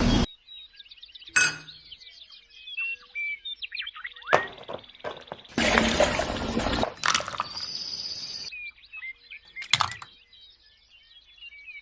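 Birds chirping in short repeated calls, broken by a few sharp clinks and knocks and a burst of noise a little after the middle.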